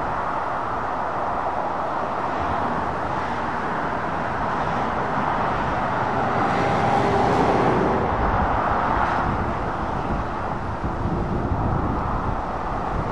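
Dual-carriageway traffic: the steady noise of tyres and diesel lorry engines, growing loudest about halfway through as a Scania articulated lorry passes close by, with a faint whine at its peak.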